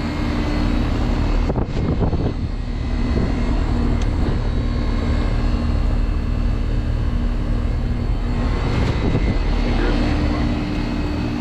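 Heat pump outdoor units running with a steady low hum. A broad rushing roar swells over it from about two seconds in and fades again near the end.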